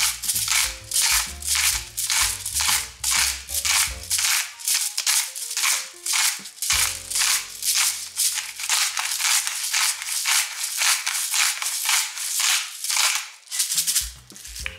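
Hand-twisted pepper mill grinding black peppercorns in quick repeated turns, about three grinding strokes a second, stopping shortly before the end. Background music plays underneath.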